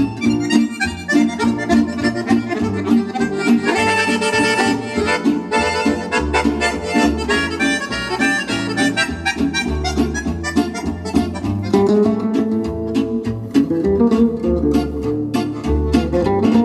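Instrumental music with a sustained reedy melody over plucked string notes, played back through an Eimac 250TH single-ended transmitting-tube audio amplifier driven by an interstage transformer, and its loudspeakers.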